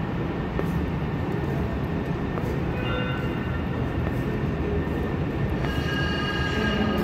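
Light rail train running through the tunnel station: a steady low rumble, with a high-pitched metal squeal briefly about three seconds in and again near the end.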